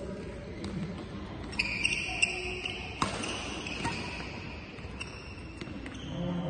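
Badminton rally: sharp racket strikes on the shuttlecock, the loudest about three seconds in, with shoes squeaking on the court floor from about a second and a half to three seconds in.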